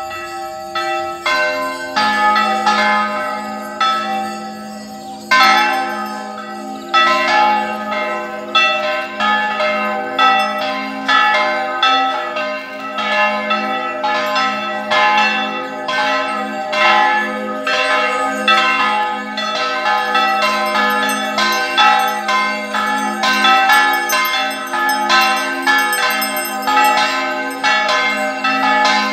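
Several church bells ringing together in an uneven peal, their strikes overlapping over a long low hum. The strikes are sparse at first and come thicker from about seven seconds in.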